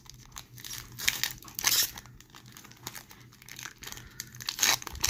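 A 2019-20 Tim Hortons Upper Deck hockey card pack's wrapper being torn open and peeled back by hand: irregular crinkling and tearing, with louder bursts about one to two seconds in and near the end.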